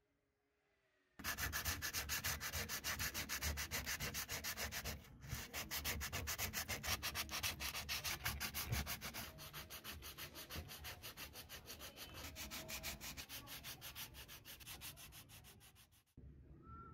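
Rapid, evenly repeated rubbing strokes that start abruptly about a second in, break off briefly around five seconds in, and stop suddenly near the end.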